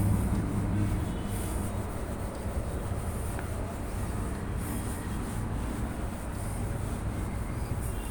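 Steady low background hum with a faint even hiss; no distinct event stands out.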